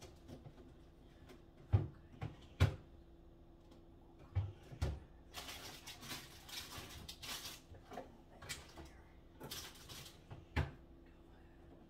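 Kitchen handling sounds: several sharp knocks and thumps of things being set down or bumped, with two stretches of rustling in between.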